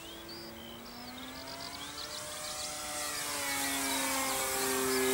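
Radio-controlled Vanquish pattern plane in flight, its motor and propeller giving a steady pitched note that bends up and down as it manoeuvres and grows louder toward the end as it comes closer. Birds chirp in the background.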